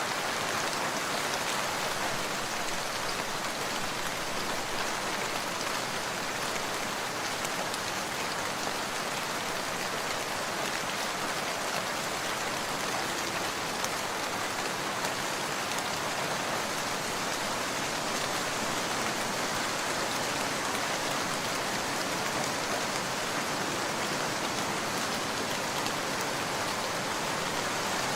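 Heavy rain falling steadily, an even hiss of drops with no lulls or gusts.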